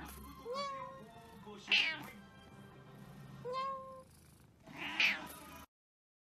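A grey-and-white Scottish Fold cat meowing repeatedly, softer short calls alternating with two louder meows, before the sound cuts off abruptly near the end.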